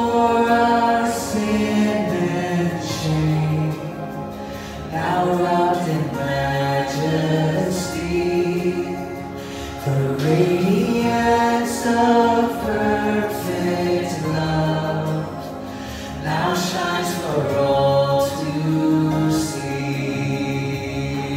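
Worship song: voices singing together in long held notes, phrases of about five seconds, over instrumental accompaniment.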